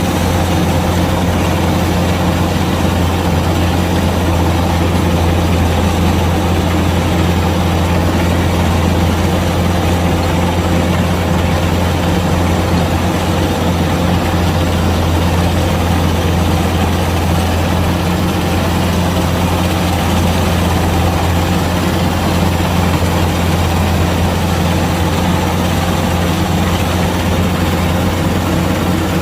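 Kubota DC-105X combine harvester's diesel engine running steadily at constant speed, a loud, unchanging low hum.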